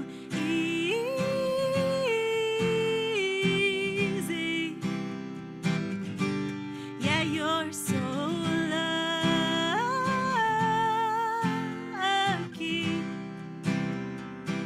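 Woman singing long, held notes over a strummed acoustic guitar, in two sung phrases with a short break near the middle while the guitar carries on.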